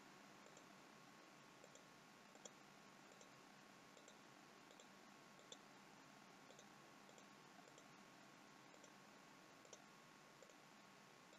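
Faint clicks of a computer mouse's left button, about a dozen spaced irregularly a second or so apart, over near silence.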